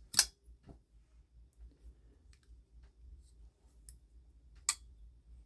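Folding pocket knife being handled: a sharp metallic click as the blade snaps over its detent, a few faint ticks, and a second sharp click about four and a half seconds later.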